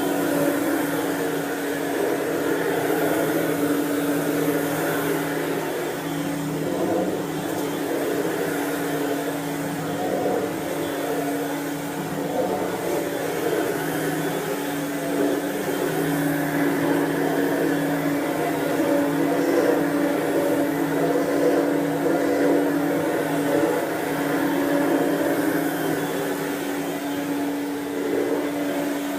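Dirt Devil Broom Vac stick vacuum running steadily with a constant motor hum while vacuuming, the sound of the suction rising and falling a little as it is pushed back and forth.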